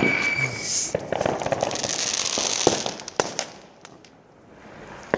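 Fireworks going off close by: a dense run of sharp crackling pops and small bangs, with a short whistling tone at the start, thinning out to a lull after about three and a half seconds.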